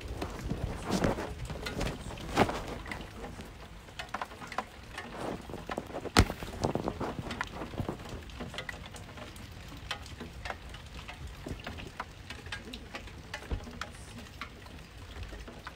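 Rain falling during a thunderstorm, with a steady hiss and many heavy drops tapping irregularly. One sharp tap about six seconds in is louder than the rest.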